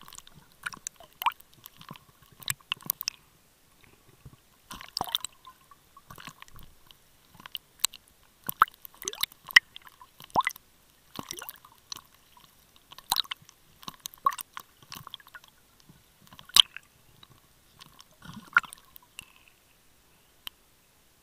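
Irregular clicks, pops and squishy crackles of water and bubbles against a submerged camera's housing, in uneven clusters, stopping near the end.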